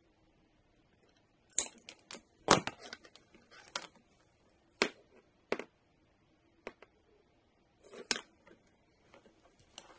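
Side cutters snipping through the wires of a twin-core power-supply lead. There are several sharp, irregularly spaced snaps with quiet cable handling between them, the loudest about two and a half seconds in, after a near-quiet first second and a half.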